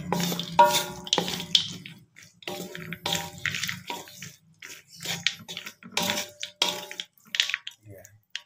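Spatula scraping and stirring a sticky mix of fried anchovies, peanuts and oily chilli sauce around a wok, in short irregular strokes about two a second that thin out near the end.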